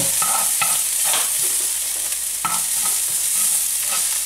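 Minced garlic and ginger sizzling steadily in hot olive oil in a frying pan, while a wooden spoon stirs and scrapes across the pan bottom in repeated short strokes.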